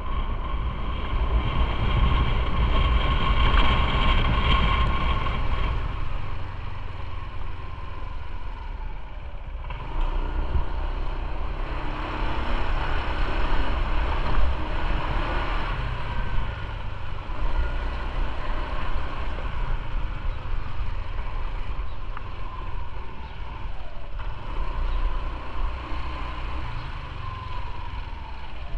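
Motorcycle under way: its engine running steadily, mixed with road and wind noise.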